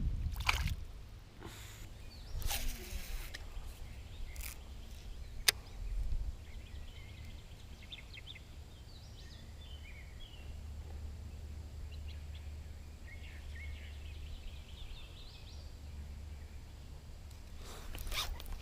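Low steady wind rumble on the microphone, with a few sharp clicks and knocks in the first six seconds and faint, scattered bird chirps through the middle.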